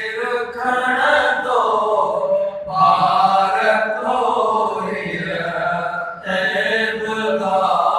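A man's voice chanting a naat, a devotional poem in praise of the Prophet, unaccompanied into a microphone. He holds long melodic lines, with a new phrase starting about three seconds in and again about six seconds in.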